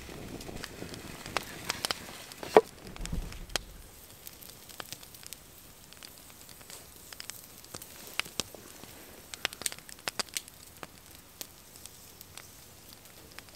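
Wood fire crackling with scattered sharp pops and snaps, one loud snap about two and a half seconds in.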